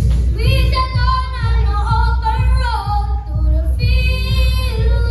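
Children's voices singing a song in unison over a backing track with a steady, pulsing bass beat.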